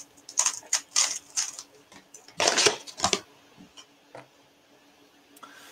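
Plastic speed cube being turned quickly while it is scrambled, quick flurries of sharp plastic clicks. About two and a half seconds in comes a louder clatter, then only a single click near the end.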